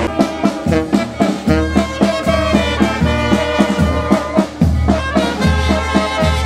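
Brass band music playing with a steady beat, trumpets and trombones over a low bass line.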